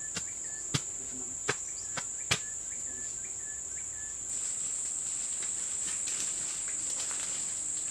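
Steady high-pitched drone of forest insects, crickets or cicadas, with four sharp knocks in the first two and a half seconds; a rougher hiss joins about halfway through.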